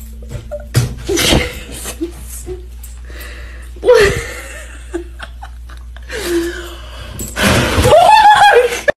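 A woman laughing in breathy bursts, building to a long loud laugh with a wavering pitch near the end, over a low steady hum.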